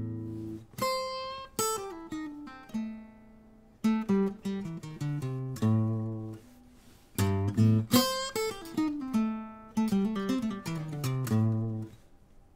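Acoustic guitar playing a fingerpicked blues phrase: single notes with a string bend over bass notes, ending in a descending run. The phrase is played twice, and the playing stops just before the end.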